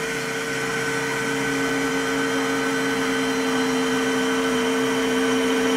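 Steady electric motor hum with a whine, from the PT6 inertial separator's electric actuator driving the bypass door closed as engine anti-ice is switched off. It gets slightly louder toward the end.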